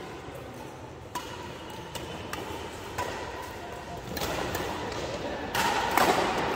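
Badminton rackets striking a shuttlecock in a rally: sharp, crisp hits roughly a second apart, some with a short ping from the strings. In the last two seconds a swell of voices and shouting rises over the play.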